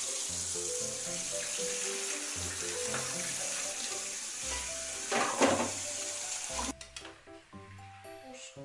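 Kitchen tap running into a metal strainer of cooked buckwheat noodles in a steel sink, with a louder splash about five seconds in as water is poured from the pot; the water stops suddenly about a second and a half later.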